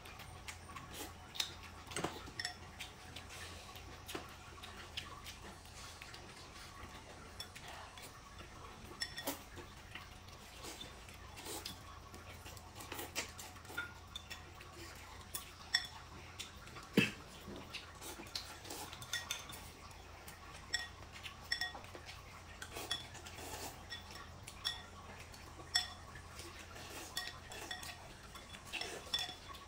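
Chopsticks clicking and tapping against ceramic and glass bowls in scattered light clinks, with one sharper knock about halfway through.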